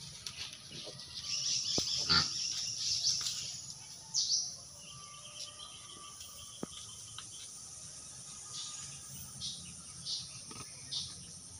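Pigs rustling through dry leaves and sticks on a dirt floor, with a few sharp snaps, and a run of short high chirps, most of them about a second apart in the second half.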